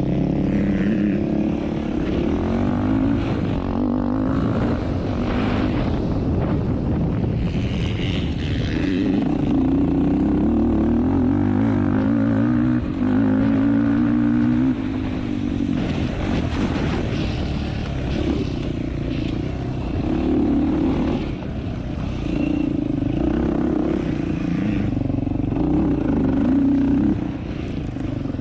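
Yamaha YFZ450R quad's single-cylinder four-stroke engine heard from on board while being ridden, revving up and falling back again and again as the throttle is worked.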